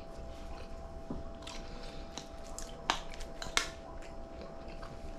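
A person eating at close range: chewing with small scattered clicks, the two sharpest about three and three and a half seconds in, over a faint steady hum.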